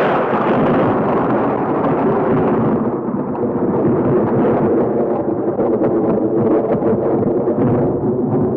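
A loud, steady rumbling noise, like the drawn-out rumble after an explosion, its upper range slowly fading.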